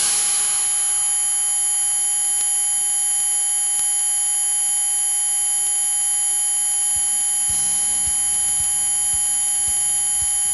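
A steady electronic buzzing whine made of several constant tones, one high-pitched, holding at an even level, with a few faint low knocks in the last few seconds.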